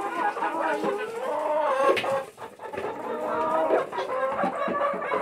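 Domestic hens clucking, a near-continuous run of wavering calls that rise and fall in pitch.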